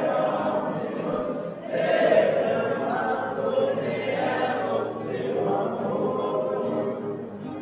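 A group of voices singing a slow religious chant together in long, swelling phrases, a Folia do Divino cantoria.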